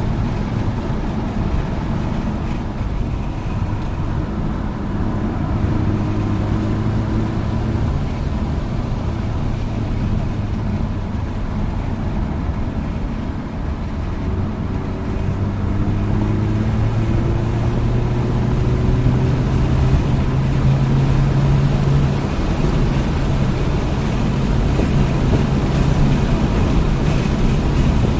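Hyundai Elantra N's turbocharged four-cylinder engine heard from inside the car while driving at moderate revs, with tyre and wind noise. The engine note holds steady, climbs slowly in the second half, then drops back.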